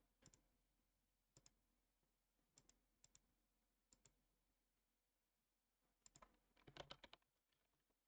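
Faint computer mouse clicks, mostly in quick pairs, repeated about once a second, then a short run of keyboard typing about seven seconds in.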